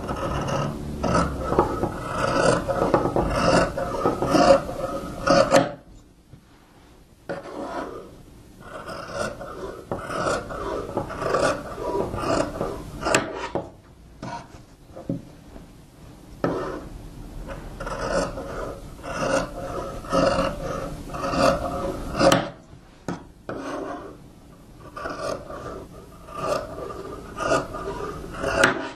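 Fabric shears cutting through cloth, a run of rasping strokes that stops briefly about 6 s, 14 s and 22 s in and then starts again.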